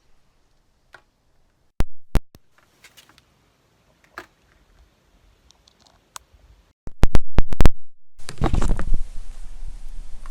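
Microphone handling noise while a lavalier mic is swapped: a few sharp plug-and-socket clicks, then loud rubbing and scraping of the mic against clothing from about seven seconds in.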